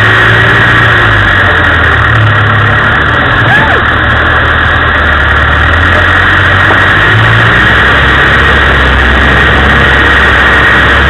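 Land Rover engine running at low revs as it crawls off-road, heard from inside the cab under a loud steady rushing noise. The engine note shifts a few times as the revs change.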